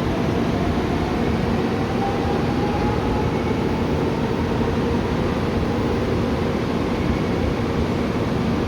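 Electric train running with a steady rumble, and a faint motor whine rising slowly in pitch as it picks up speed.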